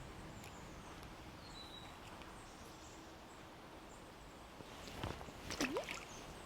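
Quiet outdoor ambience with faint, thin bird calls. About five seconds in, a short cluster of sharp clicks and knocks comes with a brief rising squeak.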